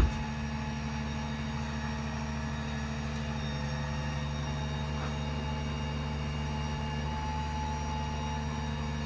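Steady low hum of the truck's 6.7 Power Stroke diesel running to drive the hydraulics for the HC5 Autocrane, with a faint steady whine above it. A short sharp knock sounds at the very start.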